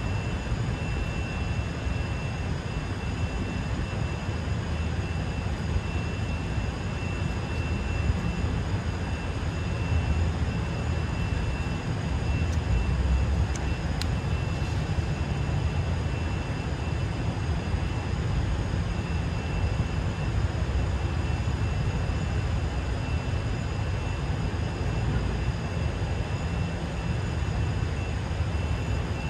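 City street ambience: a steady low rumble of traffic, with a faint steady high whine over it.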